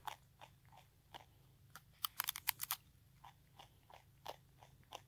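A wallaby biting and chewing a block of dry instant noodles held in a hand: a run of small crisp crunches, with a quick flurry of them about two seconds in.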